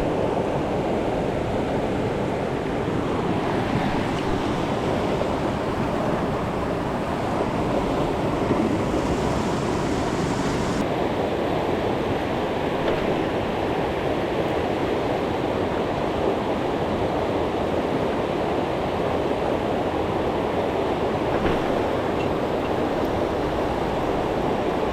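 Mountain stream rushing steadily over rocks, a continuous wash of water noise.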